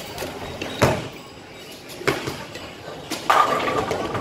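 Ten-pin bowling ball released onto the wooden lane with a sharp thud about a second in, a second knock about a second later, then a clatter of pins struck about three seconds in, over the general noise of a bowling alley.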